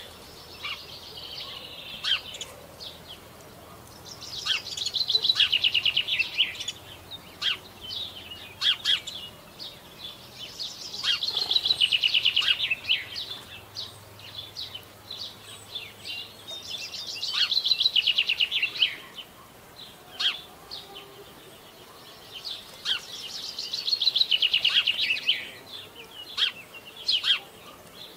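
A songbird singing the same short phrase four times, about every six seconds: a quick run of repeated notes, each phrase about two seconds long and falling slightly in pitch. Short sharp single call notes come between the phrases.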